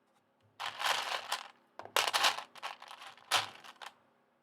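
Loose plastic Lego pieces clattering as a hand rummages through them, in three bursts of rattling clicks.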